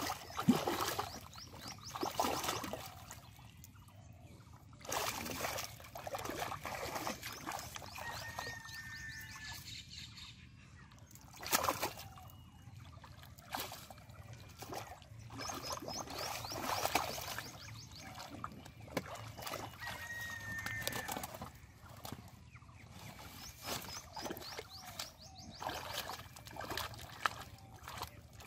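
Hands digging and scooping through soft mud and shallow water, with irregular wet squelches, splashes and sloshes, a few sharper splashes among them.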